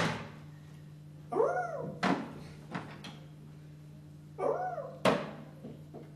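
A dog- or cat-like whine voiced for a bone puppet, twice, each short call rising and falling in pitch, and each followed by a sharp knock as a bone is set down on the box.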